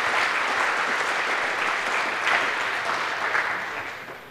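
Audience applauding: dense, steady clapping that fades away near the end.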